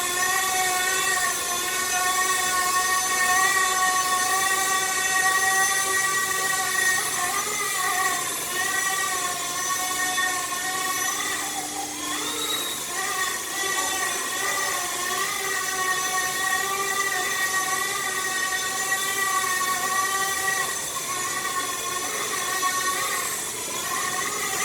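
Small RC ERA C189 helicopter's electric motor and rotors whining steadily in flight. The pitch wavers a few times as the throttle and rotor load change, dipping most about halfway through.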